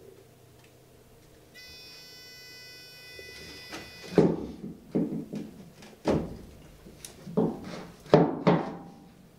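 About eight hollow thunks of black plastic ABS drain pipe being knocked and worked into its fitting, starting about four seconds in and coming irregularly, roughly one or two a second.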